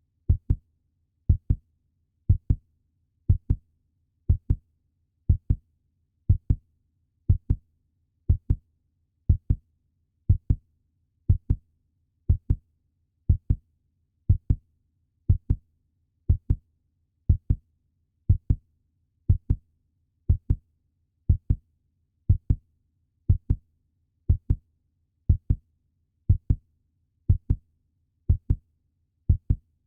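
Puppy heartbeat sound effect: steady lub-dub double thumps, about one pair a second, deep and short, with silence between beats.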